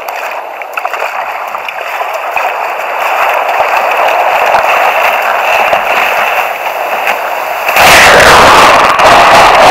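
Surf rushing and splashing around a sit-on-top kayak being paddled in through breaking waves, growing louder. Near the end a breaking wave crashes over the kayak, a sudden loud roar of white water swamping the microphone.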